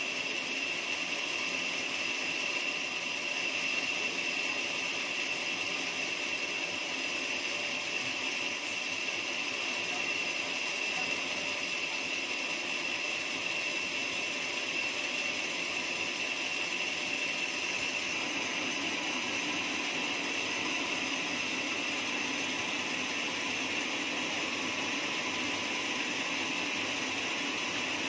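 Horizontal band sawmill running steadily, a continuous high whine over a mechanical hum; the lower hum grows a little stronger about two-thirds of the way in.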